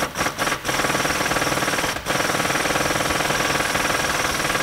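Impact wrench hammering, loosening the bolts of the rust-rotted radius-arm bracket on the frame: a few short bursts, then a long continuous run with a brief break about two seconds in.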